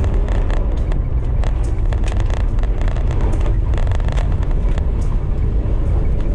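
1999 Jeep Cherokee under way, its replacement 4.0-liter inline-six and the road giving a steady low rumble, with frequent small rattles and knocks from loose parts on the vehicle.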